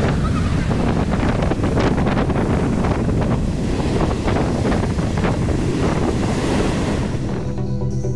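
High, rough surf crashing and churning on the coast, with strong wind buffeting the microphone: the sea still stirred up in the wake of a cyclone. Music comes in near the end.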